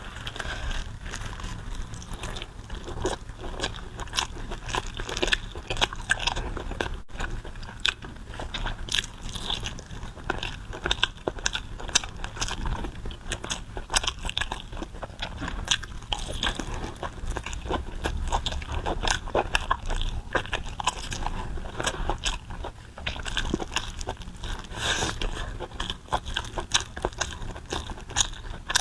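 Close-miked biting and chewing of a large pig tongue, with many irregular short clicks and mouth smacks.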